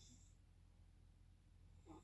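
The pause between two snores: the end of one snore trails off just after the start, then a near-silent stretch with a faint low hum, and the next snore begins near the end.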